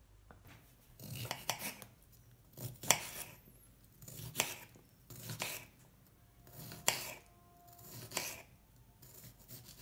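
Kitchen knife slicing cucumber on a countertop: short runs of crisp cuts, one about every second and a half.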